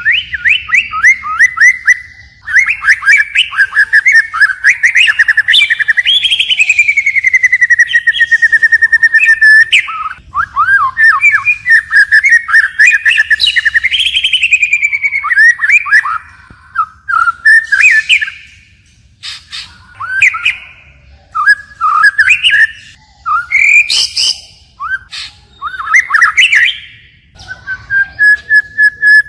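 White-rumped shama singing a long, varied song of rapid whistled phrases that keep changing, with no break for the first ten seconds or so, then shorter phrases separated by brief pauses from about sixteen seconds in.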